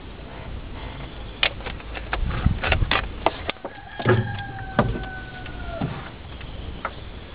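Sharp clicks and knocks of hard plastic being handled while a car battery's cells are topped up with electrolyte, followed by a steady squeak lasting nearly two seconds that dips slightly in pitch as it ends.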